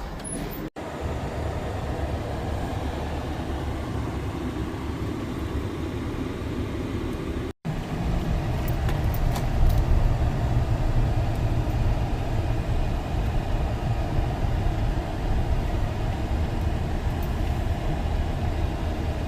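A motor vehicle running steadily, with a low engine and road rumble, cut off abruptly twice where the footage is edited together.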